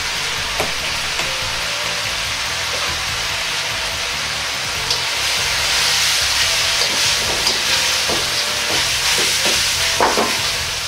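Beef, glass noodles and vegetables sizzling in a wok. From about halfway in, a ladle stirs them: the sizzle grows louder and the ladle knocks and scrapes against the wok a few times, loudest about ten seconds in.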